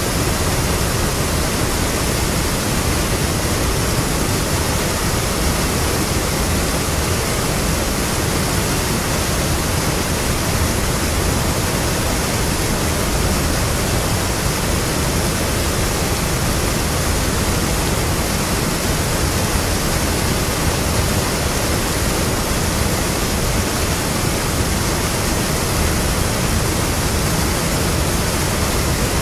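River water pouring over a mill weir and crashing into the foaming pool below: a loud, steady rush.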